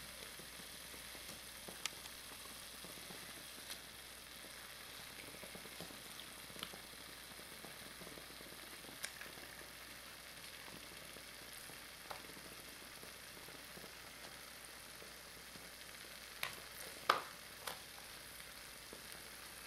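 Beef fillets and an onion-and-ají sofrito frying in a stainless steel pot: a steady faint sizzle with scattered small pops every couple of seconds, and a few sharper clicks near the end.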